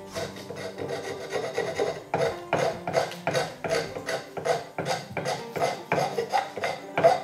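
Draw knife scraping and shaving a wooden hatchet handle held in a vise, in quick pull strokes that become stronger and more regular about two seconds in, at about two and a half a second. The blade is taking off the ridge where the handle meets the axe head.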